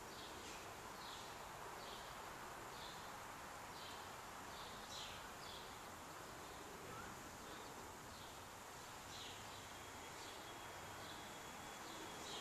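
Faint outdoor ambience: short high chirps repeating irregularly, about once or twice a second, over a steady hiss, with a thin steady high tone coming in about two-thirds of the way through.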